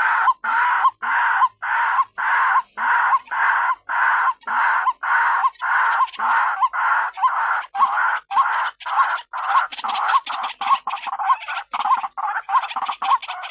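White-breasted waterhen (ruak-ruak) calling loudly, a harsh note repeated about twice a second that turns quicker and choppier near the end. This is the female's call, used as a trapping lure.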